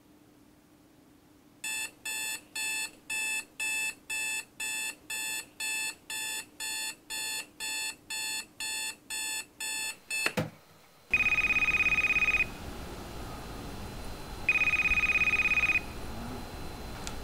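Digital alarm clock beeping about twice a second for several seconds, then cutting off suddenly. After that, an electronic cordless phone rings twice, with long trilling rings about three seconds apart.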